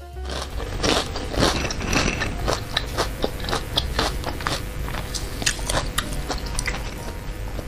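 Close-up mouth sounds of chewing meatballs (bakso): a dense run of short, irregular clicks and smacks.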